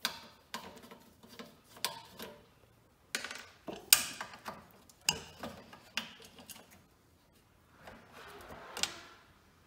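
Screwdriver working screws loose from the steel high-voltage cage of a tube TV chassis. Irregular metallic clicks and knocks of the tool and hand on the sheet metal, the loudest about four seconds in, with a brief scrape near the end.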